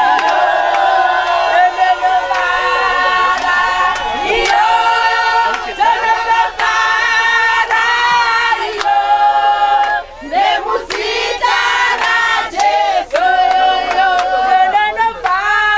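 A group of women singing together in chorus, with hand claps keeping the beat.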